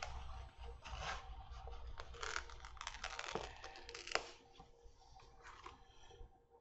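Faint rustling and scratching of a paper sticker sheet handled with metal tweezers as a sticker is picked from its backing: a run of small scrapes and ticks over the first four seconds or so, then quieter.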